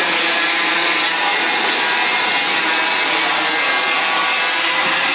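Handheld angle grinder cutting through a PVC wall panel, its disc running steadily under load as it saws through the plastic.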